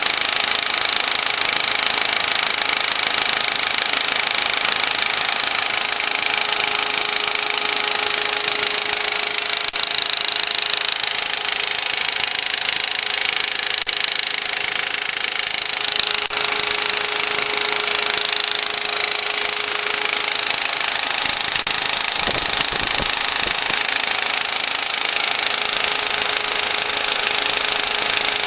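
2004 Volkswagen Passat's 1.8T turbocharged four-cylinder engine running steadily with a clicking, ticking noise, which the owner suspects is a lifter.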